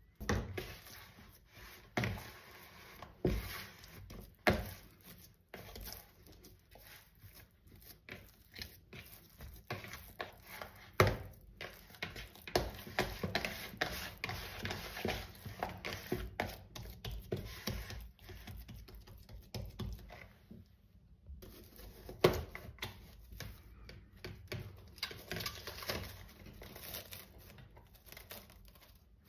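Silicone spatula scraping dough out of a stainless steel mixer bowl, with several sharp knocks against the bowl rims, then soft handling of the dough. Near the end, plastic cling film crinkles and tears as it is pulled and stretched over the bowl.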